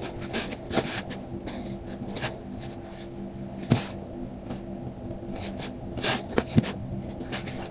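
Paper and card being handled in crafting, with scattered sharp taps and short rustles; the loudest taps come near the middle and a few in quick succession later on, over a steady low hum.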